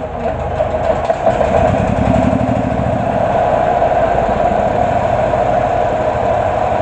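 Fujihama 3600-watt gasoline inverter generator running steadily, its engine note picking up slightly about two seconds in and then holding even.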